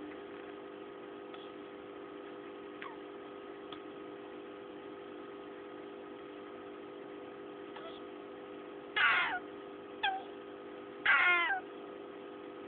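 A pet turtle making high calls that fall steeply in pitch: a couple of faint ones, then three louder ones close together near the end, the middle one short. A steady hum runs underneath.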